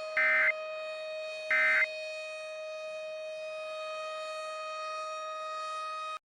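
Emergency Alert System end-of-message data bursts: two short, harsh digital squawks about a second and a half apart, marking the end of the tornado warning. Under them is a steady droning alert tone that cuts off suddenly about six seconds in.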